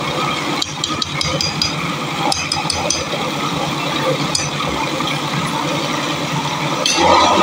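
Electric blender motor running steadily, churning yogurt made from milk cream (malai) into butter and buttermilk in a glass jug. Light clinks of a metal slotted spoon against the glass come about a second in and again near three seconds.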